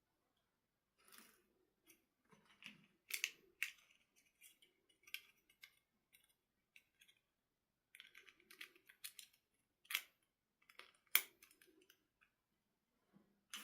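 Scattered light clicks and short rustling scrapes of small plastic toy parts and packaging being handled, with a few sharper snaps about three seconds in and again around ten and eleven seconds.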